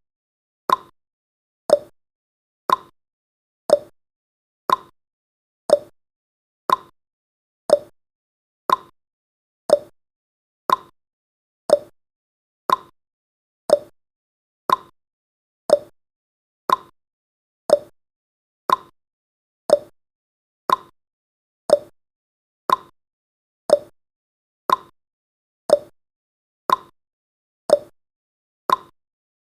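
Clock-style ticking sound effect of a countdown timer: sharp, evenly spaced ticks about once a second.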